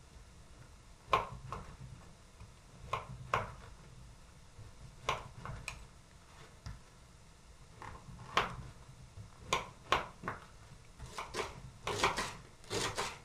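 Kitchen knife cutting through rye bread and knocking on a wooden cutting board: single sharp taps, spaced irregularly about a second or more apart. Near the end the taps come quicker as green onions are chopped.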